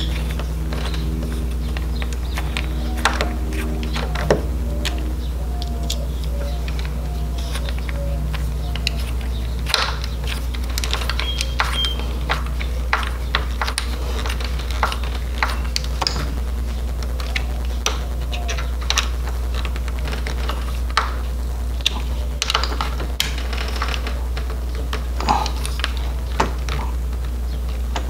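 Irregular small metal clicks and taps of a hand screwdriver turning the screws of a Kwikset deadbolt latch into a door edge, with the latch plate rattling as it is handled, over a steady low hum.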